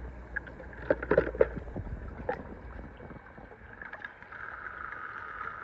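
A few light clicks and knocks from plastic toy trains being handled, over faint steady outdoor background noise that rises slightly near the end.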